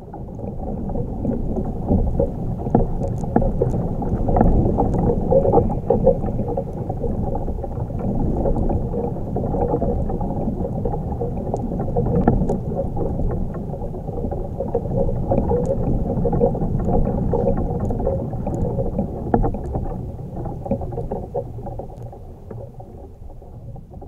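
A tree branch creaking and rattling in the wind, picked up through a magnetic contact microphone strapped to the bark: a dull low rumble with faint ticks and creaks, swelling and easing with the gusts.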